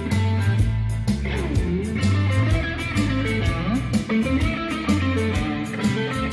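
A band playing live at a sound check: guitar to the fore, with bending notes over a bass line and a steady drum beat.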